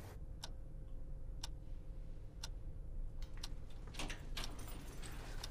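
A clock ticking about once a second over a faint steady hum; after about three seconds the ticks give way to a few irregular light clicks.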